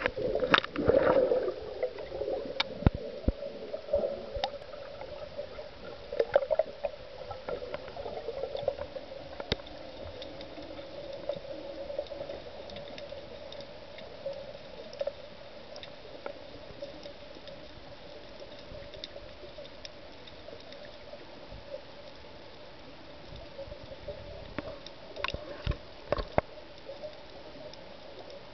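Underwater sound picked up by a freediver's camera: splashing and gurgling as he leaves the surface during the first couple of seconds, then a steady muffled hum with scattered sharp clicks as he descends.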